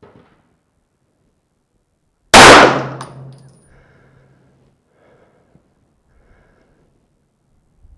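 A single 9mm pistol shot, sudden and very loud, about two seconds in, ringing out and fading over a second or so. A few faint clicks follow.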